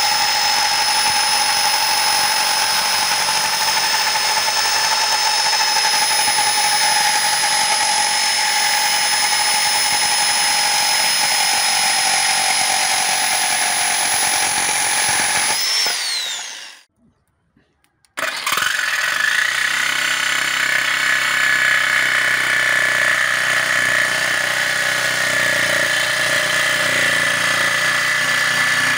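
CAT DX57 electric jigsaw sawing through a pine board, its motor running with a steady whine. About 16 s in it winds down with falling pitch and stops, and after about two seconds of silence it starts up again and runs steadily at a different pitch.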